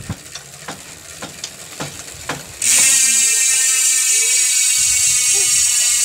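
Rear hub of a bicycle, a six-pawl Sword performance hub, freewheeling as the rear wheel spins: a few separate clicks, then about two and a half seconds in the wheel is spun fast and the pawls ratcheting over the freehub sound as a loud, steady, high-pitched buzz.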